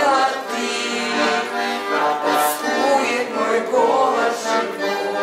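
Accordion music: a melody moving over held chords.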